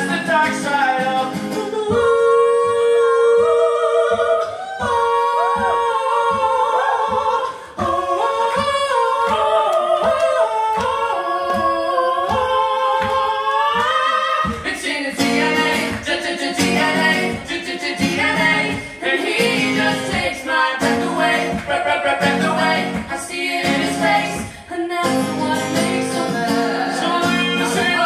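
Live acoustic duo: a man and a woman singing together over acoustic guitar. Through the first half the held vocal lines sit over a light, regular beat; about halfway in the guitar and voices fill out into a fuller, denser sound.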